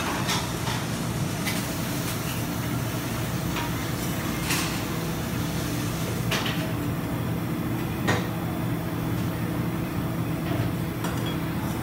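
Metal spatula scraping and knocking on the frozen steel pan of a rolled-ice-cream cold plate, a few short sharp scrapes and clacks at irregular intervals. Underneath is a steady low hum.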